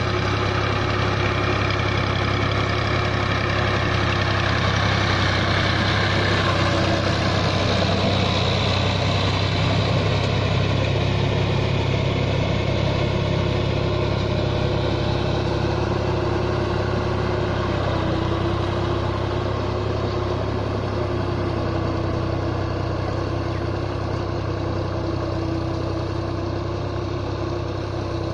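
Tractor engine running steadily at working speed while puddling a flooded paddy field, a continuous low hum with a steady pitched drone, a little fainter in the second half.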